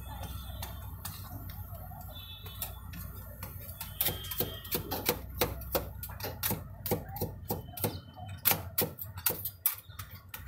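Metal spatulas chopping and scraping ice cream mixture on a stainless-steel cold plate: a run of sharp metallic taps and clicks that comes faster and louder from about four seconds in, over a low steady hum.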